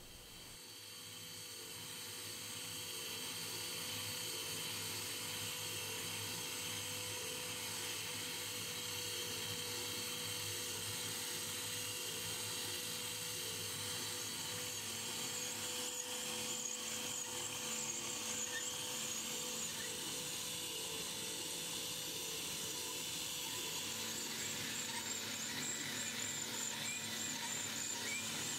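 Motor-driven miniature 4-cylinder DOHC model engine running: a steady high whir of its spinning pulleys, belts, gears and timing chains, building up over the first few seconds and then holding steady.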